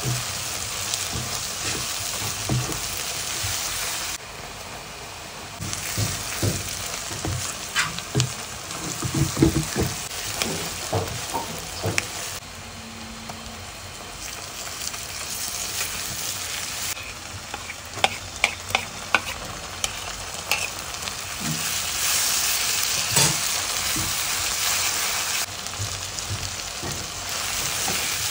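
Sliced onions and bay leaves sizzling in hot oil in a nonstick pan, stirred with a plastic spatula that knocks and scrapes against the pan in clusters of sharp taps near the middle. The sizzle dips quieter for a few seconds twice, then comes back up.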